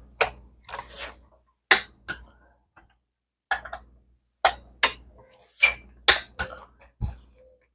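Irregular sharp metallic clicks and clinks of a torque wrench being worked on the flywheel bolts as they are tightened in stages.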